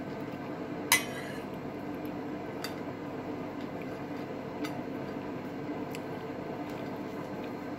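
Metal spoon and fork clinking and scraping against a ceramic plate while spreading soft cheese on a flatbread: one sharp clink about a second in, then a few lighter taps. A steady low hum runs underneath.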